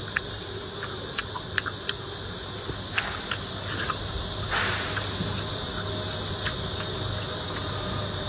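A person eating spicy noodles and meatballs: small wet mouth clicks from chewing and a short slurp about four and a half seconds in, over a steady high hiss.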